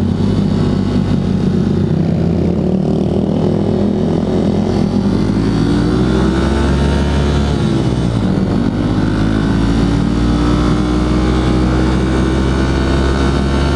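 Honda CRF150L's single-cylinder four-stroke engine pulling under way, its pitch rising as the bike accelerates, dropping suddenly about eight seconds in as a gear change, then rising again.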